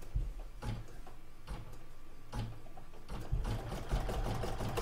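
Computerised embroidery machine stitching a satin-stitch border. Spaced knocks at first, then a little over three seconds in it settles into a rapid, even run of stitches over a steady motor hum.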